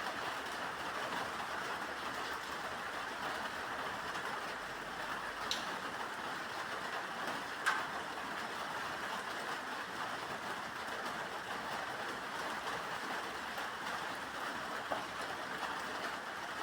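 Steady rain falling in an even hiss, with two sharp drip-like ticks about five and a half and seven and a half seconds in.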